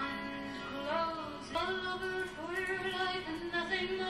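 Background music with a woman singing long held notes that step to new pitches.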